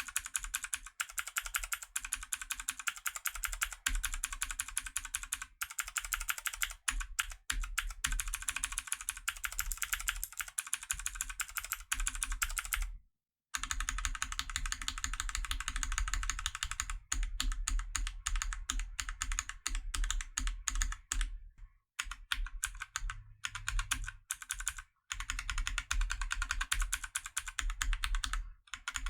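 Fast, continuous typing on a mechanical keyboard, the key switches clacking in quick succession. There is a brief pause about halfway through and a couple of short breaks later on.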